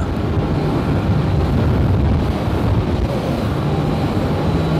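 Bass boat's outboard motor running at speed, a steady engine hum under the rush of wind and water.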